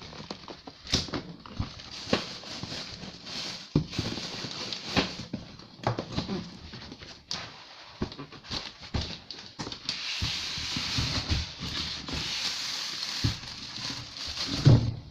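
Packaging being handled while a boxed inkjet printer is lifted out: rustling and crinkling with scattered knocks and clatter, and a heavier thump near the end.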